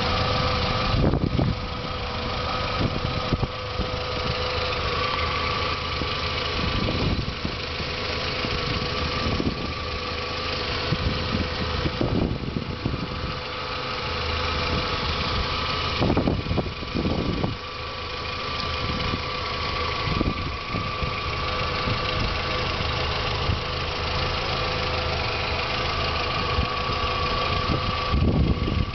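2001 Volkswagen New Beetle's 2.0-litre four-cylinder engine idling steadily, heard from the open engine bay, with a steady whine running alongside.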